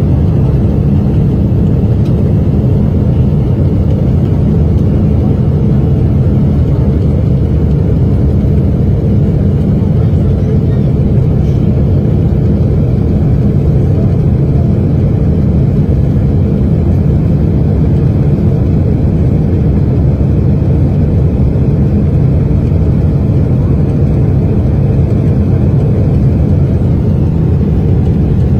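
Steady, loud, low rumble heard inside the cabin of a Boeing 777 in flight, from its failed Pratt & Whitney PW4000 engine, which is burning with its cowling torn away, and the air rushing over it.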